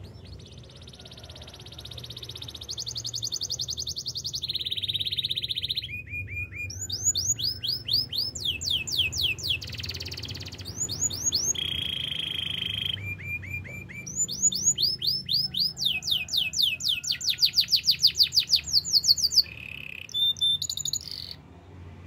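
Canary singing a long song of rapid trills and repeated phrases: runs of quick downward-sweeping notes, several a second, switching to a new repeated note every second or two, over a faint low rumble. The song stops just before the end.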